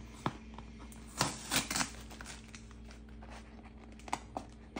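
Corrugated cardboard box being opened by hand: fingers picking and tearing at the taped flap, with a short run of tearing and scraping about a second in and a few light clicks and taps.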